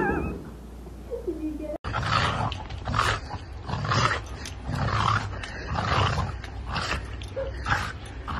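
A pet animal's short, rough calls, repeated about once a second. They start after an abrupt cut about two seconds in.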